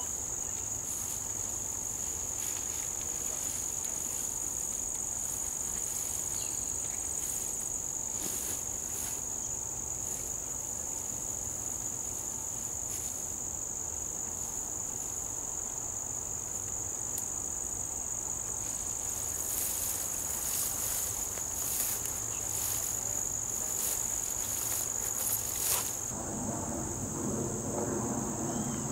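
Insects trilling in one steady, high, unbroken tone, with short rustling sounds in the last several seconds.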